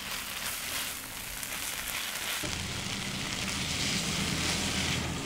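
Shrimp and tomato tom yum sauce sizzling in a frying pan, with a low steady hum joining about halfway through.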